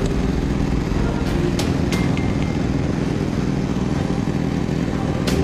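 Troy-Bilt Vortex 2890 three-stage snowblower running steadily under load while throwing snow, with a few sharp clicks.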